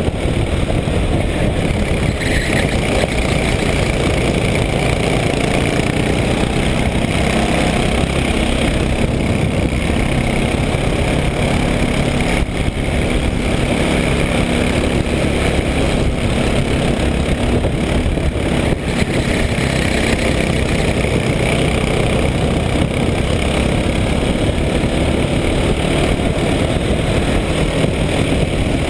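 Racing go-kart engine running hard, heard from the kart itself, its note rising and falling a little with the throttle through the corners, under a heavy rumble of wind on the microphone.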